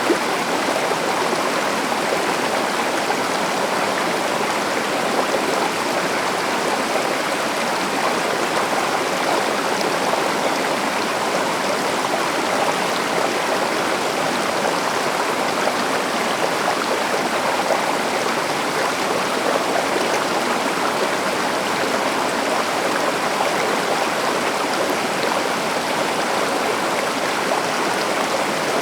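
Stream or river water rushing steadily over rocks, an even, continuous flow sound with no change.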